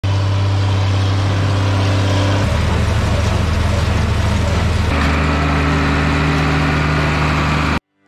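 Farm tractor diesel engines running steadily while baling. First a John Deere 4430 pulling a round baler, then a Case IH Maxxum 125 pulling a New Holland small square baler, then a third steady engine note. The engine note changes abruptly twice as the clips change, and the sound cuts off suddenly near the end.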